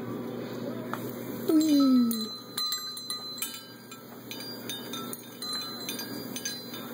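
Small brass bells on a parrot's hanging swing toy clinking and jingling again and again as an African grey parrot swings and clambers on it. Just before the bells start, about a second and a half in, there is a short, loud, falling voice-like call.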